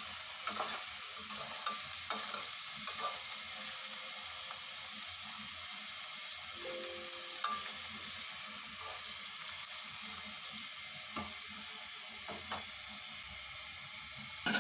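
Sliced onions sizzling steadily in hot ghee in an aluminium pot while they soften, with occasional clicks and scrapes of a metal slotted spoon stirring against the pot.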